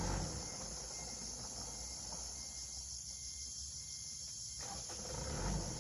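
Steady high-pitched drone of forest insects, with a faint low rumble underneath from a vehicle driving away.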